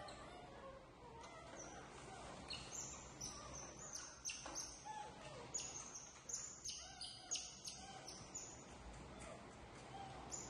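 A rapid run of short, high-pitched chirps, some falling in pitch, packed closely through the middle of the stretch.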